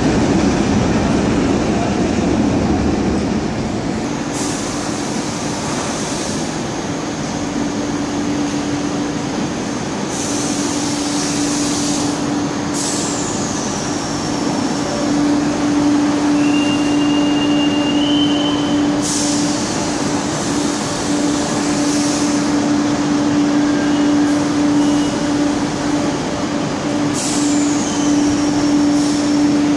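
Trains at a railway station: a yellow track maintenance machine rumbles past at the start, then a standing train gives a steady electric hum, with short hisses and two falling whistles over it.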